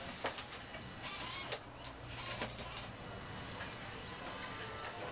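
MacBook laptop keys and trackpad being tapped: a few scattered clicks in the first half, quieter after.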